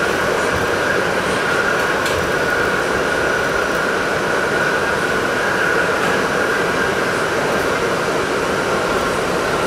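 R68 subway car running through a tunnel, heard from inside the car: a steady rumble of wheels on rails with a steady high whine over it.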